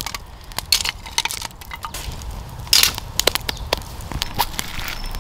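Wood fire crackling, with irregular sharp snaps and pops from the burning split firewood; the loudest pop comes a little under three seconds in.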